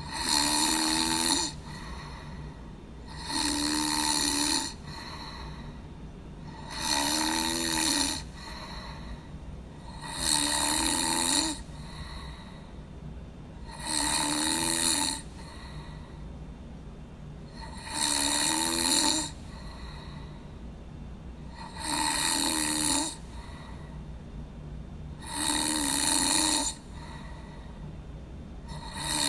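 A person snoring in a slow, even rhythm: nine long snores, each about a second and a half, coming roughly every three and a half seconds. A faint steady low hum runs underneath.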